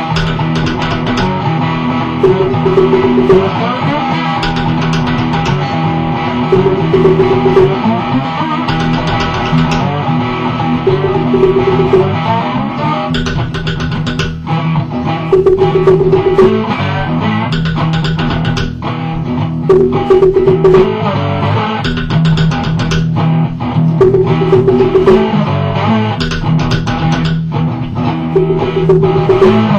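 Cigar box guitar playing a repeating riff, the same short phrase coming round about every four seconds, with a log drum beating along. The drum hits grow busier about halfway through.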